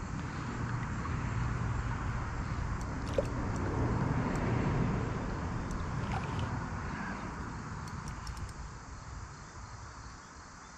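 Water splashing and swirling as a hooked smallmouth bass thrashes at the surface beside a kayak, over a low rumble. It is loudest about halfway through and fades toward the end.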